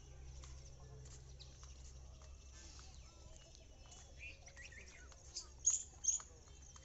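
Wild birds chirping: a few short, quick chirps in the second half, the loudest two close together about six seconds in, over a faint steady low hum.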